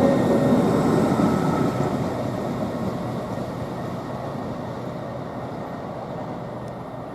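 Class 800 train pulling away from the platform and receding, accelerating gently rather than on full power, its running noise fading steadily.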